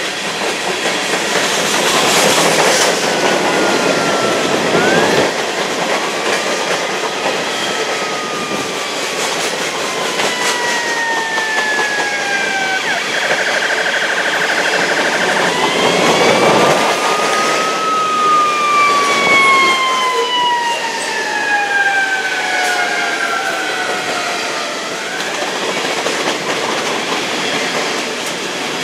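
Freight cars of a long intermodal train rolling past close below, a steady rail and wheel rumble. Several long, high squealing tones ride over it, each slowly falling in pitch over several seconds.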